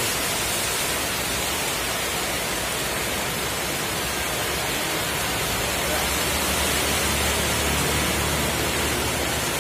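Steady hiss of heavy rain falling. About six seconds in, the low rumble of an approaching bus's engine grows louder under it.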